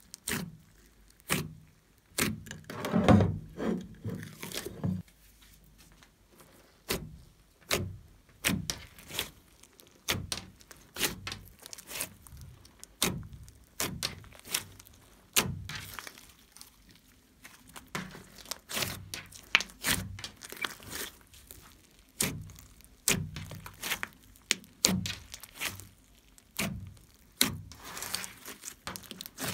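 Hands kneading and squeezing a large mass of foamy slime, giving a run of irregular sticky pops and clicks, about one or two a second, with a louder, busier stretch of squishing a few seconds in.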